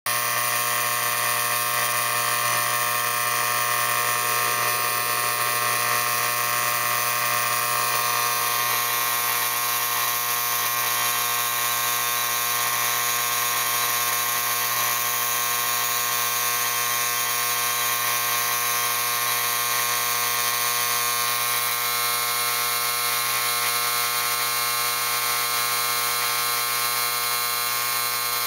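Lionel No. 356 postwar operating freight station with its vibrator mechanism buzzing steadily as it drives the baggage carts around the platform track. The hum holds one even pitch throughout.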